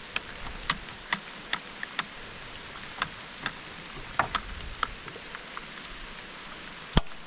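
Raindrops dripping onto hard surfaces: sharp, irregular ticks about one or two a second over a steady low rain hiss, with one louder click near the end.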